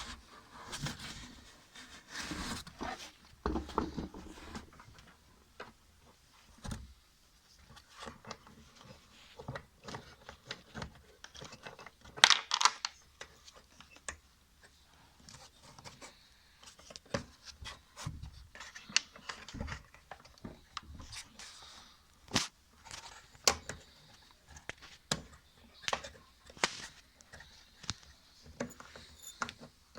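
Hands working the washing machine's plastic drain pipe and parts: scattered clicks, scrapes and rustles, with one louder crackling scrape about twelve seconds in.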